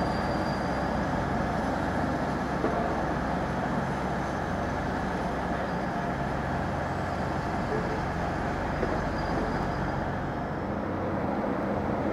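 A train running through a railway station: a steady rumble with a low, even drone.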